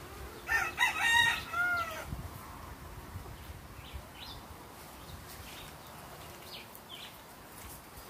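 A rooster crows once, about half a second in, a call of about a second and a half that falls in pitch at the end.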